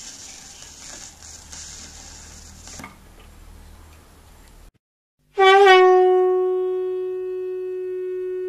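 The last of a record's playback fades out as quiet hiss and crackle, then cuts to dead silence just before five seconds in. Half a second later a loud, sustained horn-like synthesized note starts suddenly, wavers briefly, then holds one steady pitch while slowly fading.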